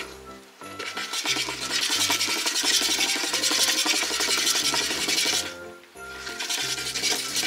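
Motorised cat teaser toy running, its furry tail swishing, with short pauses just after the start and about six seconds in. Background music with a steady beat plays underneath.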